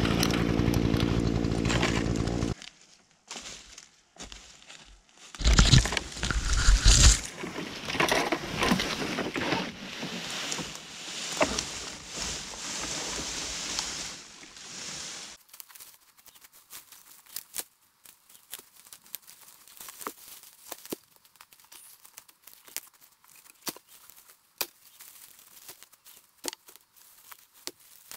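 A small engine running steadily cuts off abruptly about two and a half seconds in. Then cut branches and brush crackle, snap and thump as they are dragged through the undergrowth, loudest in the first half. After that come quieter footsteps with scattered twig snaps on the forest floor.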